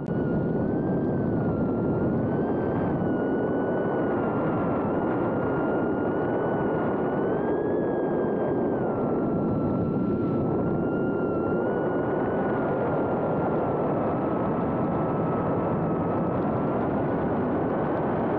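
BetaFPV Meteor85 tiny whoop drone in flight, heard from on board: a steady whine from its small brushless motors and ducted propellers over rushing air. The whine's pitch rises and falls slightly as the throttle changes.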